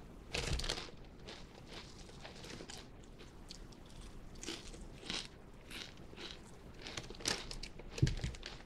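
Lay's potato chips being bitten and chewed close to the microphone: a sharp crunch about half a second in, then a run of crisp chewing crunches, with louder ones near the end.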